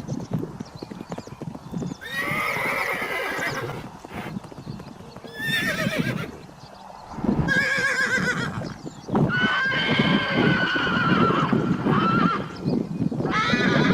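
Horses neighing: about five separate whinnies with a shaky, warbling pitch, the longest starting about two-thirds of the way in, over irregular hoof knocks.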